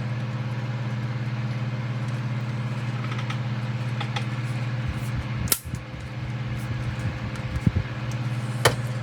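A steady low hum, with a few sharp clicks and knocks of plastic model parts being handled. The loudest clicks come about five and a half seconds in and near the end.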